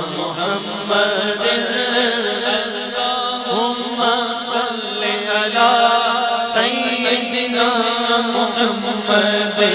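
Background music: an Urdu naat, a devotional song in praise of the Prophet, sung melismatically by a voice over a steady held drone.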